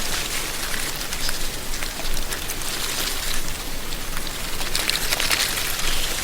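Wind blowing through a tree canopy, dry leaves rustling as a steady crackling hiss that swells and eases in gusts every second or two.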